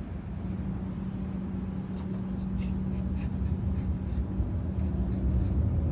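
Steady low mechanical hum with a held low tone, its rumble slowly growing louder, and a few faint short high sounds about halfway through.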